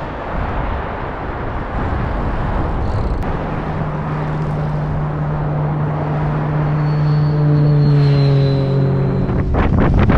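Strong headwind rushing over the microphone on a bicycle ride. From about three seconds in, a motor vehicle's engine hums at a steady pitch and grows louder, then stops abruptly near the end and is followed by a few sharp knocks.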